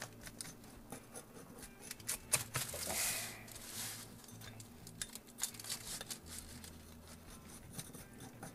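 Rolling pizza cutter slicing through a thin, crisp grilled pizza crust: irregular crunching and crackling clicks as the wheel cuts.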